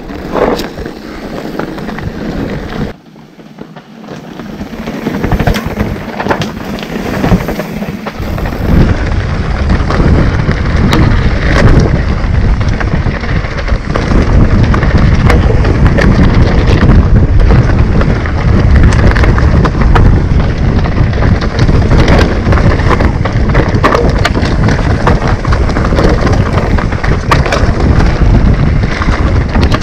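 Mountain bike ridden down a dry, rocky dirt trail: tyres crunching over gravel and stones, with many short rattles and knocks from the bike over bumps. About nine seconds in, a heavy low rumble of wind and trail noise on the camera microphone sets in and stays.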